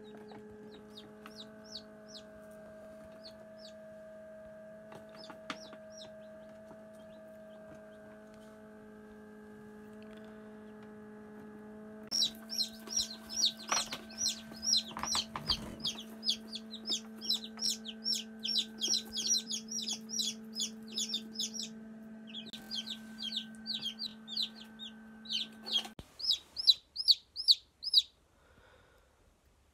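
Newly hatched chicks peeping over the steady hum of an incubator. The peeping is sparse at first, then from about twelve seconds in it turns rapid and constant. A few seconds before the end the hum stops and only the peeping is left.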